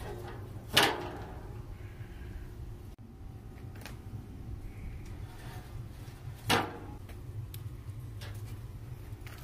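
Two sharp knocks, about a second in and again about six and a half seconds in, as slabs of seasoned beef ribs are set down on the smoker's expanded-metal cooking grate. A steady low hum runs underneath.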